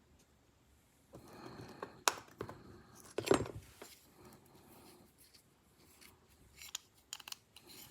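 Small metal knife parts and tools handled on a workbench during disassembly: scattered clicks and light clatter, loudest about three seconds in, with a quick run of clicks near the end.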